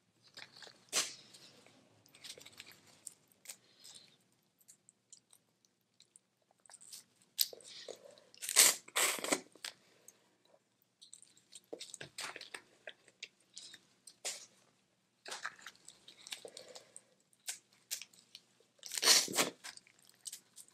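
Boiled crawfish being peeled and eaten close to the microphone: shells cracking and crunching, with chewing in between. The loudest crunches come about halfway through and again near the end.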